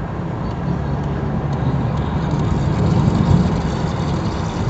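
Cabin noise of a moving car: a steady low rumble of engine and road noise that swells slightly about three seconds in.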